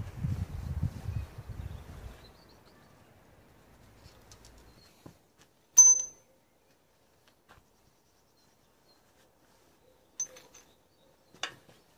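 Metal tools and small steel parts handled on a concrete work table: shuffling and rustling at first, then one sharp metallic clink with a short high ring about six seconds in, and a couple of lighter clinks near the end.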